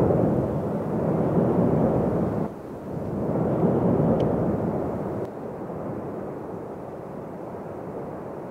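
Roar of the Cumbre Vieja volcano's lava fountains, a deep rumbling noise that surges, dips sharply about two and a half seconds in, surges again, then dies down after about five seconds and keeps fading.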